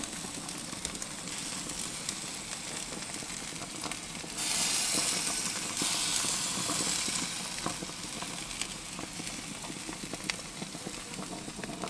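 Bacon-wrapped quails sizzling on the hot grate of a Weber Spirit gas barbecue at the end of cooking, a steady hiss with small crackling pops. The sizzle grows louder for a stretch about four and a half seconds in.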